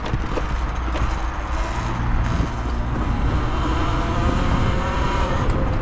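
Talaria Sting electric dirt bike being ridden off-road: wind rumble over the microphone, tyres and chain rattling over rough ground with scattered knocks, and a faint electric motor whine that rises as the bike picks up speed.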